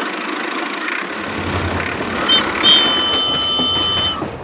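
An engine running, with a low rumble coming in about a second in. A steady pitched tone sounds over it for about a second and a half near the end.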